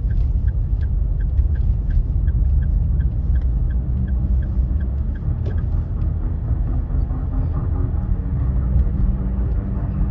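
Car driving with a heavy low rumble. A regular ticking, about three times a second, stops about five and a half seconds in. The engine note then rises steadily as the car speeds up.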